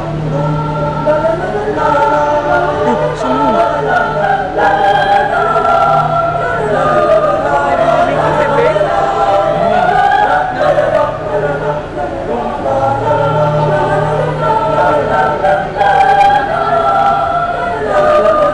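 Mixed choir of women's and men's voices singing unaccompanied under a conductor, the low voices holding long steady notes beneath moving upper parts.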